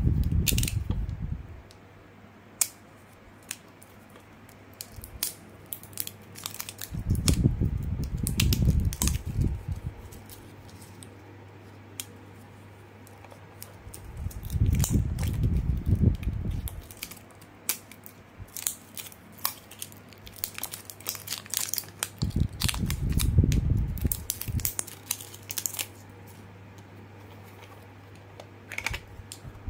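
Hands handling a plastic electronic push-game toy and its batteries: many small clicks and ticks of plastic and batteries being handled, with several bursts of low rumbling handling noise, over a steady low hum.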